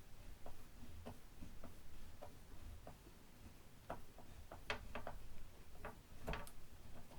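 A screwdriver backing out the last mounting screw of the loudspeaker's woofer: a run of small, irregular clicks and ticks, with a louder click a little past six seconds in.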